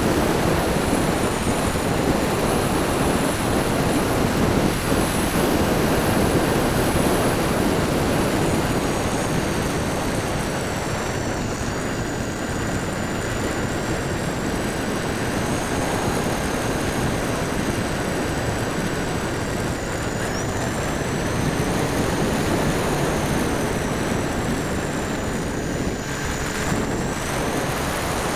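Model Transall C-160 in flight: a steady rush of wind over the wing-mounted camera's microphone, with the thin high whine of the motors and propellers drifting up and down in pitch.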